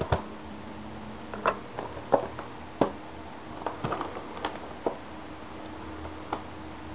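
Light clicks and taps of a clear plastic action-figure box being handled and turned over in the hands, scattered irregularly, over a faint steady hum.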